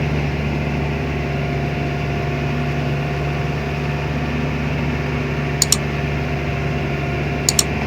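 Daihatsu Taft's swapped-in Toyota Dyna truck diesel engine running steadily at an even speed. Two pairs of short sharp clicks come about five and a half and seven and a half seconds in.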